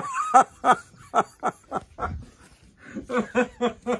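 People laughing heartily: a string of short ha-ha pulses that lulls briefly about two and a half seconds in and then picks up again.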